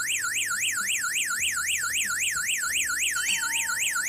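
Small loudspeaker driven by a breadboarded alarm tone-generator circuit, playing its sixth tone mode: a fast siren-like warble, the pitch sweeping up and down about five times a second.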